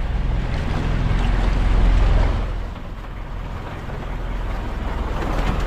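Wind on the microphone and waves washing against a bamboo outrigger fishing boat on open sea: a low rumbling rush that swells for the first two seconds or so, then eases off.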